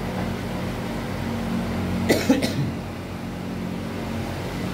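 A person's short cough, two quick bursts about two seconds in, over a steady low hum.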